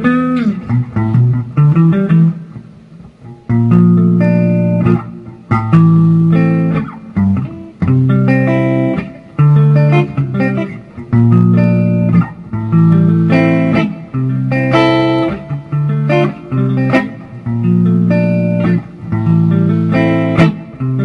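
Samick Greg Bennett AV-1 electric guitar played with both pickups on: a repeated phrase of ringing chords and notes, each held about a second, with short breaks between.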